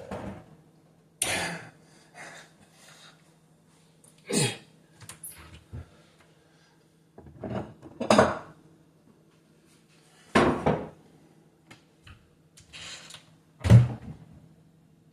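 Dishes and cutlery being handled on a kitchen counter: irregular clattering knocks and scrapes, about eight in all, over a faint steady hum.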